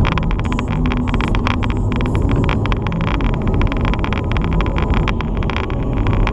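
A Chrysler Crossfire driving on the highway, heard from inside the cabin: a steady low engine and road rumble with a fast, irregular rattle of clicks on top.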